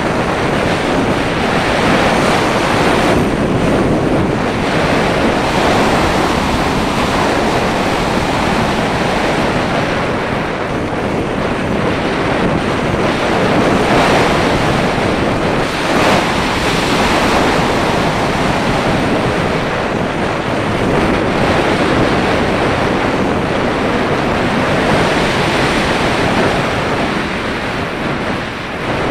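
Steady rush of wind noise from the airflow over an action camera mounted on the nose of a Breta Models Starlite slope-soaring glider in flight. It swells and eases gently as the glider manoeuvres. There is no motor sound.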